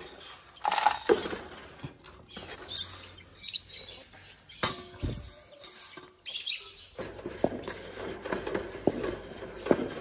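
Wood-shaving bedding rustling and crunching as a hand digs through a wooden parrot nest box, with short bird chirps mixed in.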